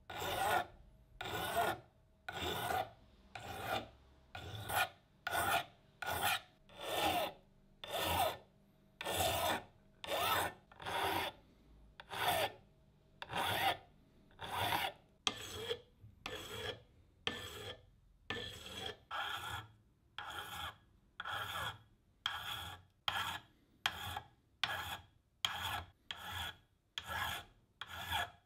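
Hand file rasping across a brass lamp part in a steady run of short back-and-forth strokes, about one and a half a second.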